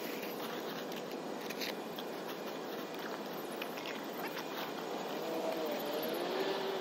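Plastic packaging crinkling in a few brief bursts as it is handled and stuffed into a bag, over a steady outdoor background rumble. Faint wavering tones join in near the end.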